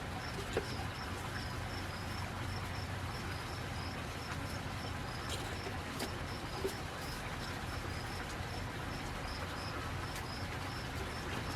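Insect chirping steadily in short, high chirps repeated about three times a second, over a steady background hiss, with a couple of faint clicks.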